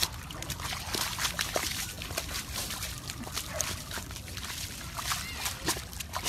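A long-haired dog rolling and wriggling in a muddy puddle: wet sloshing and squelching of mud and water, with many short irregular splats.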